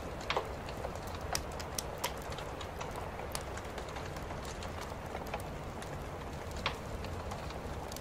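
Ground firework fountain hissing steadily as it sprays sparks, with scattered sharp crackles.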